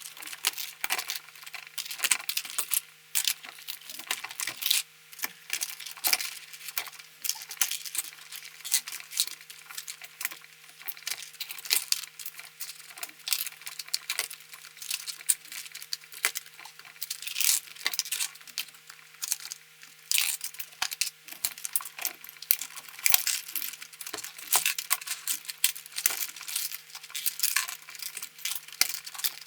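Plastic keycaps being pried off a Logitech G213 keyboard with a keycap puller: rapid, irregular clicking and clattering as the caps pop off and drop onto the pile.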